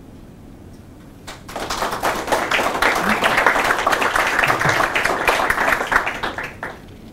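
Audience applause, starting about a second and a half in, running for roughly five seconds and fading out near the end.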